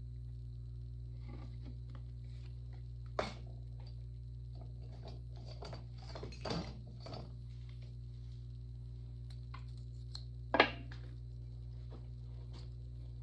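Hands handling a small clay cup and a tool on a wooden work board: scattered light knocks and rustles, a cluster near the middle, a sharp knock about ten and a half seconds in, over a steady low hum.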